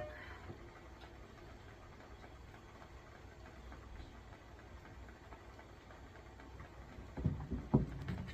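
Wood fire in a fireplace crackling faintly, with scattered small ticks and a few sharper irregular pops about seven seconds in.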